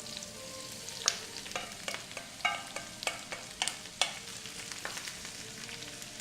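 Sliced cabbage sizzling in hot coconut oil in a frying pan, with a utensil knocking against the pan every half second or so as it is stirred, a few strikes ringing briefly.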